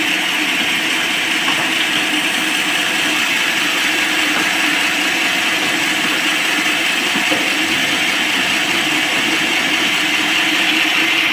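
Band sawmill running with a steady, even mechanical noise.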